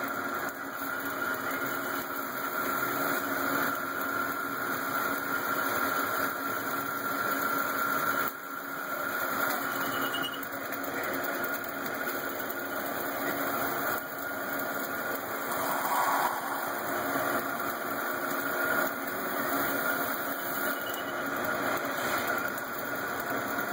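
Haas SL-30 Big Bore CNC lathe running a turning cut on a large ring workpiece: a steady machine noise with a constant whine, the cutting peeling off curled chips.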